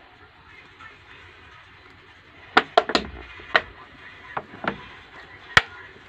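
Thin plastic water bottle crackling as it is gripped and turned in the hand: a run of about seven sharp crackles starting about halfway through.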